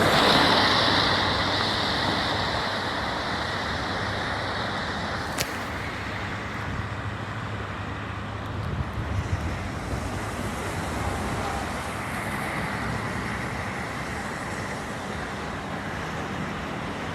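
Steady road traffic noise from vehicles on the nearby highway interchange, loudest at the start and easing off. A single sharp click about five seconds in.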